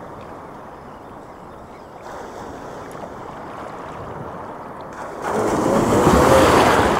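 Sea waves washing at the shoreline with wind, then a wave breaking close by about five seconds in, rising to the loudest point and fading near the end.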